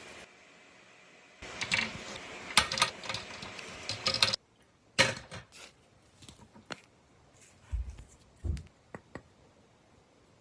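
Objects being handled and set down: a clattery stretch of clicks and rattles, then a few separate knocks and taps.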